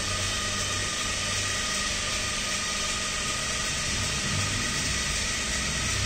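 Small DC gear motors of a battery-powered robot car running steadily as it turns left under Bluetooth control, a steady hum under an even hiss.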